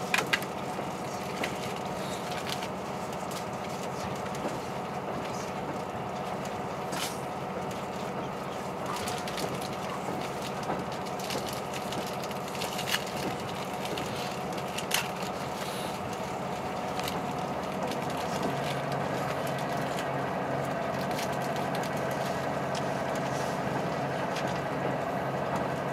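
Cabin noise of a KiHa 183 series diesel express railcar under way: the diesel engine's steady drone and the rumble of wheels on rail, with scattered clicks and knocks. About two-thirds of the way through, a deeper engine hum joins and the sound grows slightly louder.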